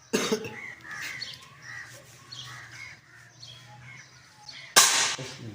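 Crows cawing and other birds calling in short, repeated calls. A sudden loud burst of noise comes near the end.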